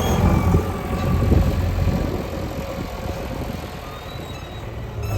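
Heavy diesel machinery engine running, a low steady drone that eases off somewhat after about two seconds.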